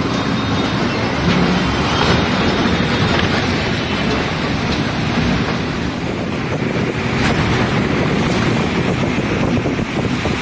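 Steady running noise inside an MSRTC bus driving in heavy rain: engine, wet tyres and rain as one even hiss and rumble. There is a short sharp click about seven seconds in.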